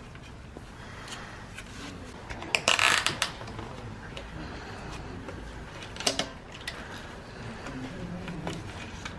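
Small clicks and knocks of parts and tools being handled on a road bike, with a louder brief scraping clatter about three seconds in and a smaller one near six seconds.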